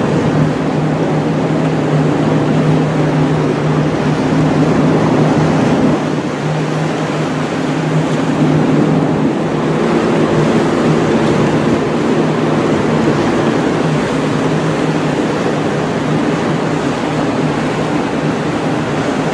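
Steady low hum of a container ship's machinery under a constant rush of wind and sea.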